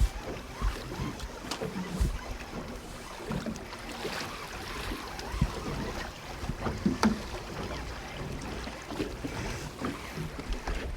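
Strong wind buffeting the microphone in a small open boat, with water splashing against the hull. A few sharp knocks come through, the clearest about two, five and seven seconds in.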